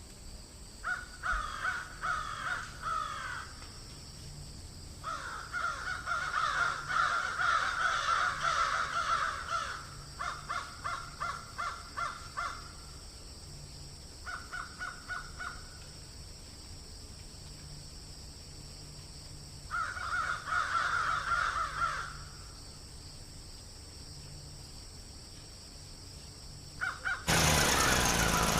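Crows cawing in several bouts of harsh, repeated calls over a steady high hiss. Near the end, a small engine starts abruptly and runs loudly with a knocking beat.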